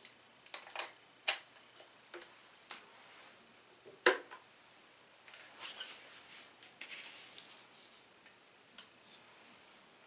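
Plastic clicks and knocks of a mains plug and socket connector being handled and pushed together, with a single sharp, loud click about four seconds in. After it come softer scraping and rustling as a multimeter and its test leads are handled, and one last light tick near the end.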